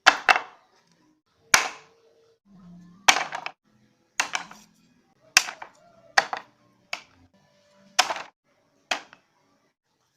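About a dozen sharp knocks at uneven intervals, roughly one a second, each ringing briefly, over faint background music.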